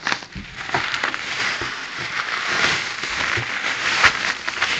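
Thin plastic carrier bag rustling and crinkling as it is handled and groceries are pulled out of it, with one sharp tap about four seconds in.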